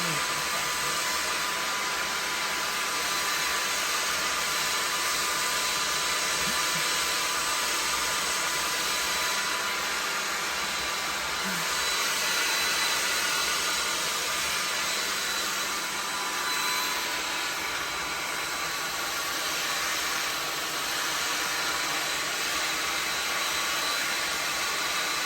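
Handheld hair dryer blowing steadily, a rushing hiss with a faint, even motor whine, drying hold spray on a wig.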